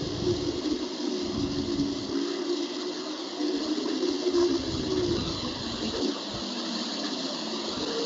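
Sonified space recording presented as the sound of planet Earth: a steady rushing noise with a wavering hum beneath it, swelling a little in places.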